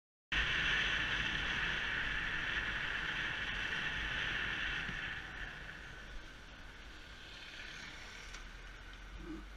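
Riding noise from a Yamaha YBR125 motorcycle, heard through a helmet-mounted action camera: a steady hiss of wind and road noise over the low hum of its single-cylinder four-stroke engine. It cuts in suddenly and grows quieter about halfway through.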